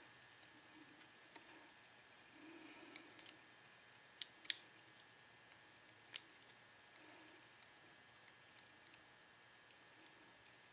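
Faint, sparse small metal clicks and taps from tweezers working in the pin chambers of a CES euro-profile lock cylinder while its pins and springs are picked out, with light handling noise. The clearest clicks come a little after four seconds in and again at about six seconds.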